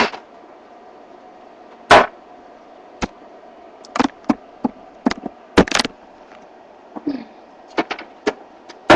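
Scattered sharp knocks and clicks of kitchen utensils and cookware being handled, about a dozen of them, the loudest about two seconds in, over a faint steady hum.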